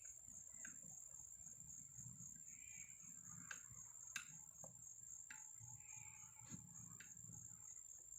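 Near silence: faint scattered clicks and creaks of a screwdriver turning a galvanized deck screw by hand into soft pine, under a steady high chirring of crickets.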